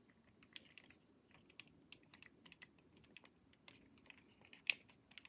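Faint, irregular clicks and taps of hard plastic as the parts of a Transformers Grindor action figure are handled and moved into place, with one louder click near the end.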